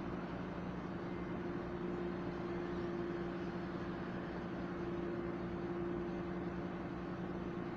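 A steady machine hum with a constant low drone over an even background noise.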